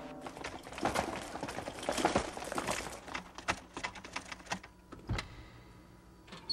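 Fire crackling: a rapid, irregular run of sharp pops and snaps, dense at first and thinning out toward the end.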